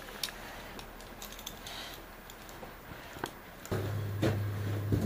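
Scattered light clicks and clinks of metal climbing hardware (carabiners and a chain) being handled. About three-quarters of the way through, a steady low hum comes in, with a few knocks over it.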